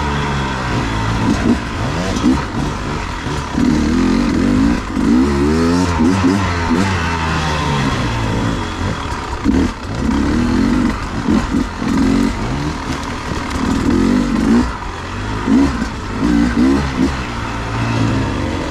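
Beta 250RR two-stroke enduro motorcycle engine being ridden, revving up and falling back over and over as the throttle is worked on and off.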